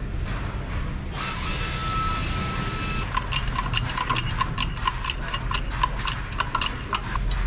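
Hydraulic bottle jack on a shop press being pumped by its handle to compress a transmission clutch drum's return spring: a quick run of light metallic clicks and ticks starting about three seconds in.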